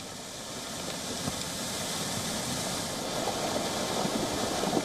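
Fast-flowing floodwater rushing, a steady noise that grows gradually louder.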